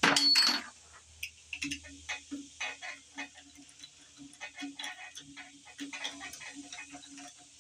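A loud metallic clank at the start, a bolt landing. Then a long run of irregular light clicks, a few a second, from a ratchet wrench backing out the cylinder head bolts of a Dodge 360 V8.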